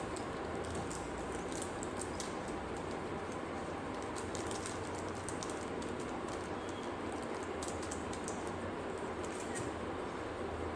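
Close-up eating sounds: chewing with small scattered mouth and utensil clicks over a steady background hiss.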